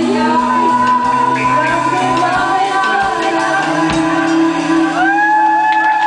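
Live band playing with a woman singing into a microphone; the drum beat stops about halfway and the band holds a chord, with shouting near the end.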